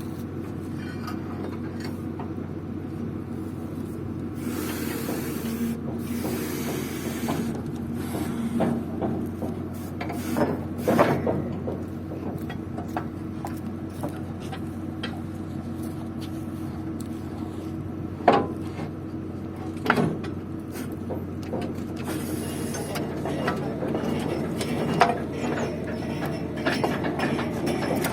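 Borewell drilling rig's engine running steadily, with several sharp metal knocks and two bursts of hissing.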